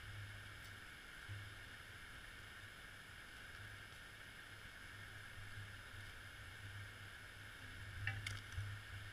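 Faint, steady underwater ambience: a low hum with a hiss above it, and a few brief crackles near the end.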